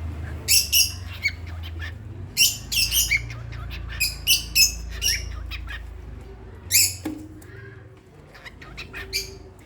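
Pet bird giving short, sharp chirps and squawks in little clusters of two or three, about a dozen calls in all, with a pause after about seven seconds before one last call near the end.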